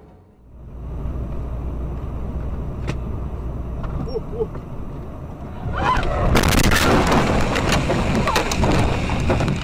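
Steady low road rumble inside a moving vehicle, then about six seconds in a loud crash: a dense run of impacts, bangs and rattling as the vehicle crashes and tumbles.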